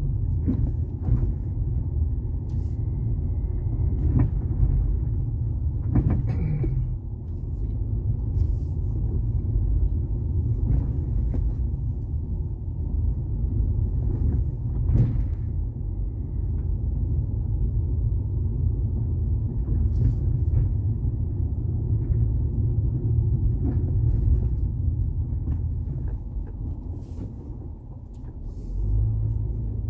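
Car driving slowly over a rough gravel road, heard from inside the cabin: a steady low rumble of tyres and suspension with occasional sharp knocks and clicks.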